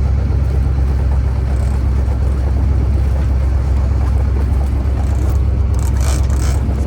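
Boat engine running steadily with a deep rumble. A brief cluster of higher, scratchy sounds comes about six seconds in.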